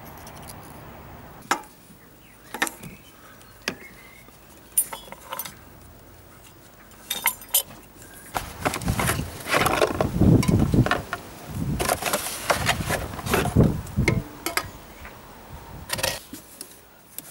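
Hand-working noise under a car bonnet: scattered sharp metallic clinks and knocks, then several seconds of dense clattering and rustling in the middle, with a few more clinks near the end.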